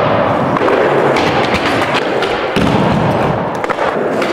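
Skateboard rolling on a smooth floor and knocking on a low plywood box, with a few sharp knocks of the board about a second in and again near the end.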